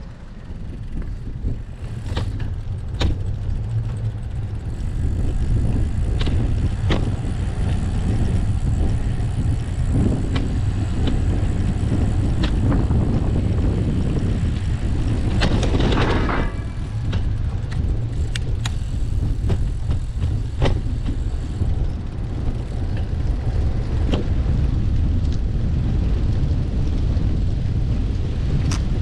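Steady low rumble of wind and riding noise on a bicycle-mounted GoPro, with scattered clicks and rattles. A louder passing vehicle swells up and fades just past halfway.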